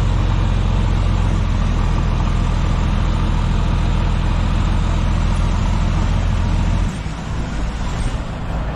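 Heavy truck's diesel engine running steadily with a strong low rumble. The low end drops away sharply about seven seconds in.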